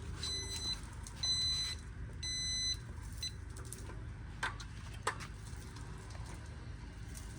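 Jazzy power wheelchair joystick controller giving short high electronic beeps about a second apart, three in a row, then two faint clicks. The beeps are fault-code beeps, which the owner reads as codes 2 and 4 and suspects the motors.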